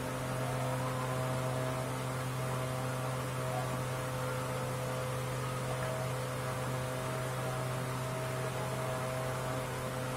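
Steady low electrical hum with faint higher tones over a constant hiss, unchanging throughout.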